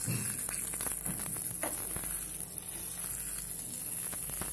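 Hot oil tempering of mustard seeds and dried red chilli sizzling steadily as it is poured from a pan into cold curd, with a few light clicks from the pan.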